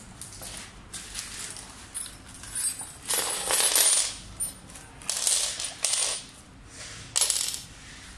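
A plastic parts bag crinkling as it is opened and handled, with loose metal hex keys clinking as they drop onto a hard floor. It comes in a string of short bursts, loudest about three seconds in.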